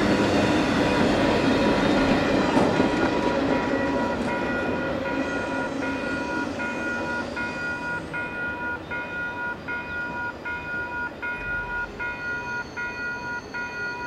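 Freight train's cars rolling past, the rumble of steel wheels on rail fading as the end of the train moves away. Under it, a railway grade-crossing warning bell rings steadily, about one and a half strikes a second, and stands out more plainly as the train noise dies down.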